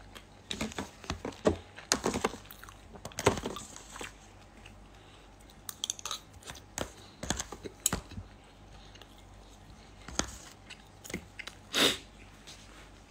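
Close-up chewing and crunching of crispy pork belly (moo krob), the crackling skin giving irregular sharp crunches as it is bitten and chewed, with a louder crunch near the end.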